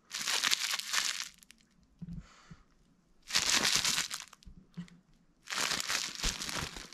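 Thin clear plastic wrapping film crinkled in the hand, in three bursts of about a second each.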